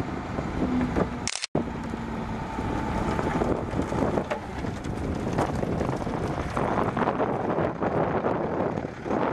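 A 1998 Freightliner FL80 dump truck's Cummins 8.3-litre straight-six diesel running, with heavy wind noise on the microphone.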